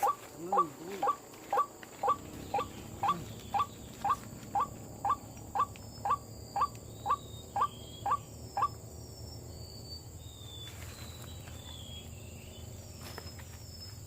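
White-breasted waterhen (ruak-ruak) call, a short note that rises and falls, repeated about twice a second, which stops about nine seconds in. Faint high chirps follow.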